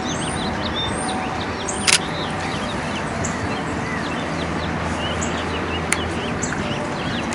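Many small birds chirping and twittering, with two sharp DSLR shutter clicks, about two seconds in and again about six seconds in, over a steady low rumble.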